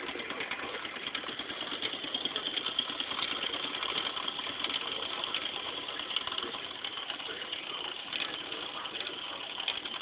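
Wilesco D365 toy steam roller's small steam engine running steadily at speed: a fast, even chuffing with the hiss of escaping steam.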